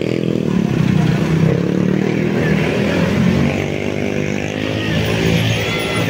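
Road traffic: a vehicle engine running close by, its pitch rising a little in the second half.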